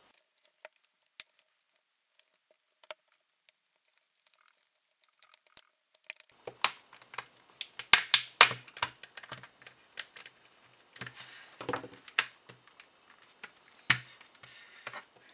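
Plastic laptop battery pack case being pried open along its welded seam with a screwdriver and then pulled apart by hand: a few light clicks at first, then from about six seconds in a dense run of plastic clicks, creaks and cracks, with a sharp snap near the end as the seam gives way.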